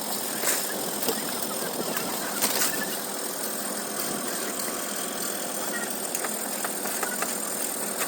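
An engine running steadily, with a few sharp clanks about half a second, one second and two and a half seconds in.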